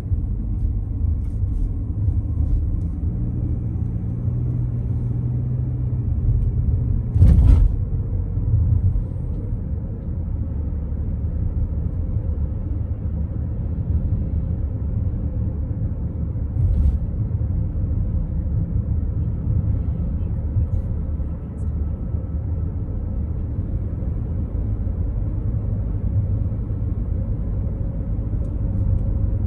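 A car driving at road speed: a steady low rumble of tyres and engine, with one sharp knock about seven seconds in, like a wheel hitting a bump.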